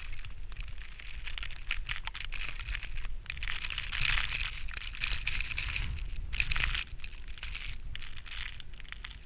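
Footsteps crunching through snow, an irregular crackling crunch with short pauses, over a steady low rumble of wind on the microphone.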